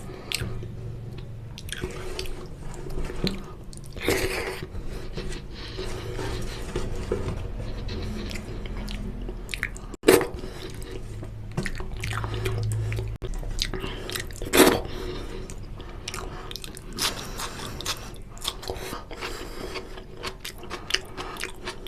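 Close-up eating of mutton curry and rice: wet chewing, mouth smacks and small clicks, with two sharper, louder knocks about ten and fifteen seconds in.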